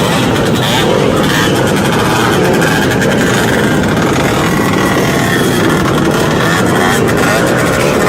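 Motorbike engines running at speed, with a loud, steady rush of noise mixed in.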